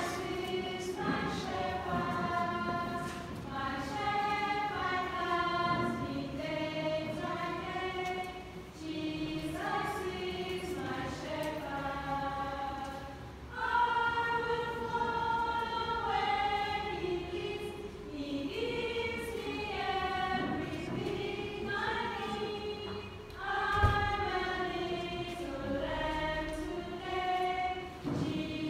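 A group of voices singing a song together, with sustained held notes, and one dull thump near the end.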